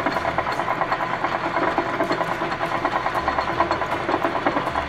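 Metal lathe running while a 3/16-inch twist drill in the tailstock chuck bores a shallow center hole into a spinning cold-rolled steel round bar: a steady machine sound with a fast, even pulsing.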